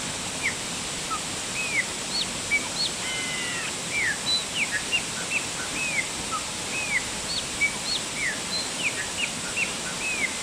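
Waterfall's steady rush of falling water, with birds calling over it: many short, downward-sliding chirps repeated throughout.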